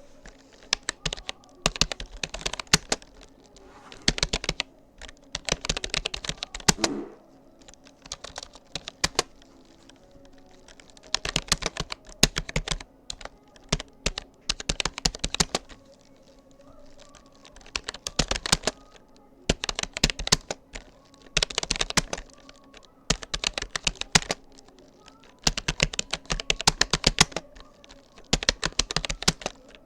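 Typing on a Rapoo computer keyboard: rapid clicking keystrokes in bursts of a second or two, with short pauses between them.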